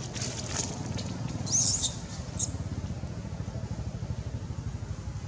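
A steady low engine-like hum with a fine rhythmic pulse, like a motor idling some way off. About a second and a half in, a short, high, wavering squeak rises over it, with a few faint clicks before it.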